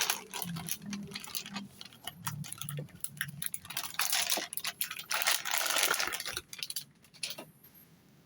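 Cardboard motherboard box and plastic packaging being handled: a run of crinkles, taps and light knocks, busiest in the middle, that stops about a second before the end.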